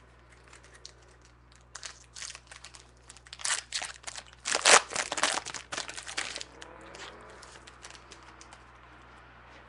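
Trading-card pack wrapper being torn open and crinkled in the hands: a run of crackling rustles that starts about two seconds in, is loudest in the middle and dies away into faint handling.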